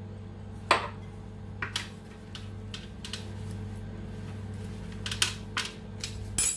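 Metal spoon clinking on a glass jar and a metal baking sheet as minced garlic is scooped onto the pan and spread around with a silicone basting brush: a handful of sharp clinks and knocks, the loudest near the end. A steady low hum runs underneath.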